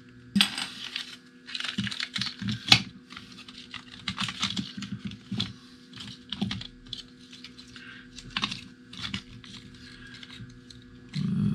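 Irregular small plastic clicks and scrapes as the plastic housing of FPV goggles is pried open and handled, over a faint steady hum.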